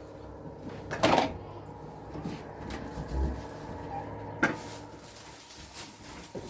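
Household knocks and clatter: two sharp knocks, one about a second in and one about four and a half seconds in, with a few lighter clicks between, like a cupboard or door being shut.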